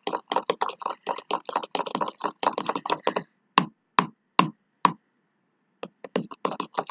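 Sticky homemade shower-gel-and-salt slime squeezed and pulled in the hands, making rapid wet clicks and pops. About halfway through they thin to a few separate pops and a short pause, then quicken again near the end.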